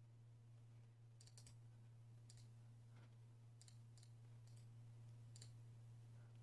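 Faint computer mouse clicks, about eight of them and some in quick pairs, over a steady low hum.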